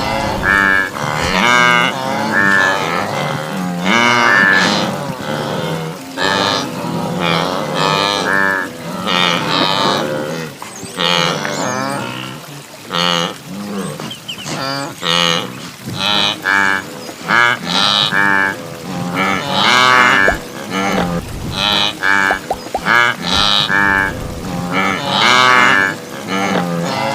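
A herd of wildebeest (gnus) calling: a dense chorus of short, repeated calls from many animals, overlapping one another about every second.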